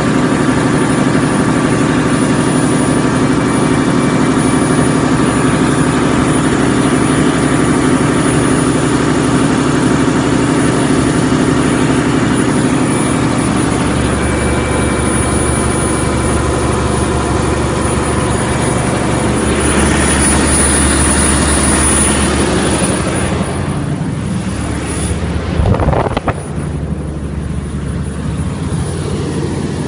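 Scania diesel engine of a 250 kVA generator set in a super-silent canopy, running steadily. About halfway through its low hum changes, and near the end the sound drops with a short sharp knock, after which it runs on more quietly.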